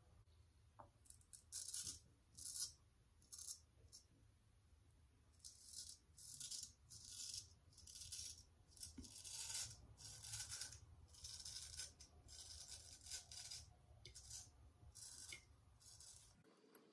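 Straight razor shaving lathered stubble on the cheek: a series of short, crisp scraping strokes, a few spaced out at first, then coming about two a second. A faint low hum lies under them.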